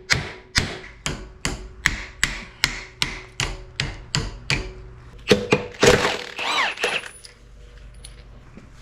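Hammer tapping steel in an even rhythm, about two or three taps a second, driving the hydraulic cylinder's head nut round as it comes loose. After about five seconds come a few louder metal clanks with a brief ringing.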